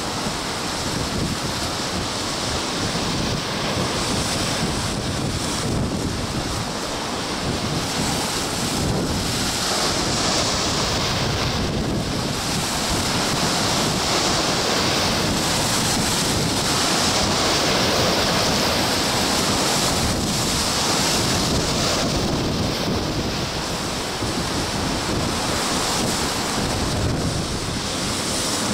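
Storm surf: a rough sea with waves breaking continuously against a rocky shore, in a steady roar with no single standout crash. Strong wind rumbles on the microphone underneath.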